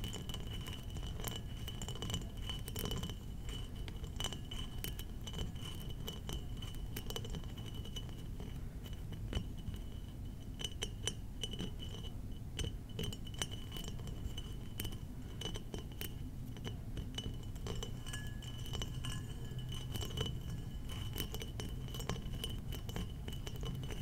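Tapping on glass bottles: a steady run of irregular light taps and clinks on glass.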